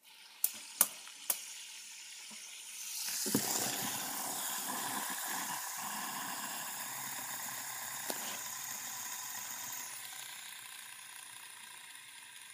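A few sharp handling clicks, then about three seconds in a fidget spinner balanced on a pencil tip is set spinning, its ball bearing giving a steady whirring hiss that slowly dies away.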